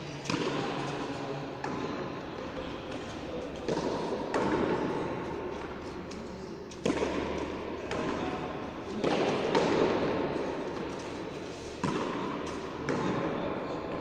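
Frontón ball being played: sharp smacks of the ball against the court wall and floor, about eight at uneven spacing, each ringing out in a long echo off the walls.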